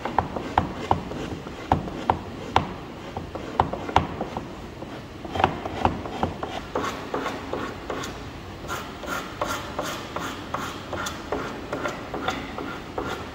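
A wooden bed slat rubbed and pushed against a flat work surface. Sharp knocks of wood on wood come over the first few seconds, then a quicker, even run of rubbing strokes, about three a second, in the second half.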